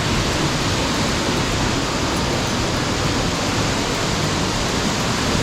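A big waterfall's falling water making a steady, even rush.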